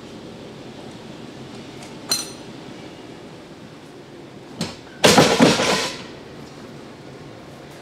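Hand-operated railway switch being thrown: a metallic clink about two seconds in, a sharp click, then a loud clattering scrape lasting about a second as the lever and point blades move over.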